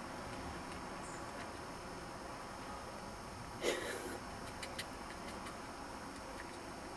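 A kitten suckling on another kitten's chest fur, over faint steady background hiss: one short breathy snuffle about halfway through, then a few faint clicks.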